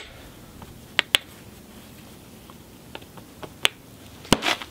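Copper bopper knocking against the edge of a cherty mudstone piece: light clicks about a second in and again near three and a half seconds, then the loudest sharp crack a little after four seconds, with a smaller click just after it.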